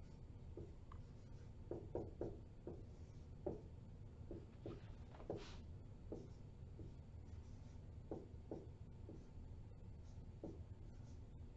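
Faint writing sounds: short, irregular pen strokes and taps on a writing surface, over a low steady room hum.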